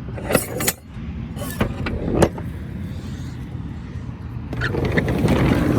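A few metal clunks and knocks at the rear of a box van, then a rolling rattle that builds over the last two seconds as the rear door is opened.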